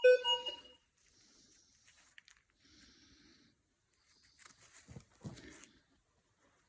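A metal detector gives a short, steady beep of under a second. A few seconds later come scraping and knocking sounds from digging or handling.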